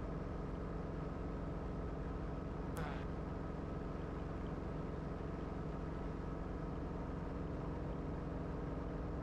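Guimbal Cabri G2 helicopter's piston engine and rotors running steadily in a low hover, heard from inside the cockpit as an even drone.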